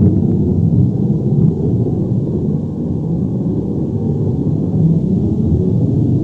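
Earthquake or avalanche rumble sound effect: a deep, steady rumbling roar with faint crackles on top, dipping slightly about halfway through.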